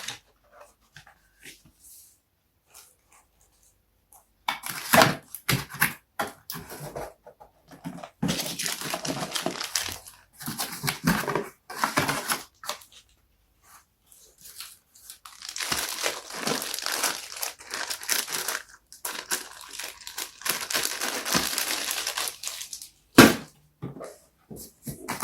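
Car speaker packaging being unboxed: irregular crinkling and tearing of plastic wrap and cardboard in two long stretches, with one sharp click near the end.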